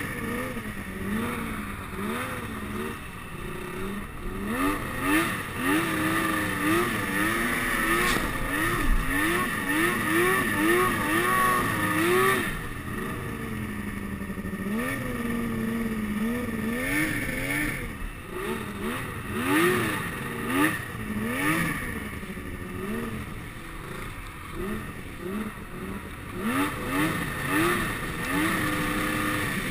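Snowmobile engine revving up and down over and over as the sled is ridden through deep snow, its pitch climbing and dropping about once a second, with a steady high whine running underneath.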